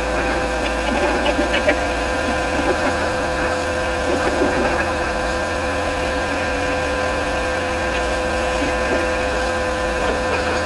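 Pressure washer running steadily: its motor and pump give a constant whine over a spray hiss.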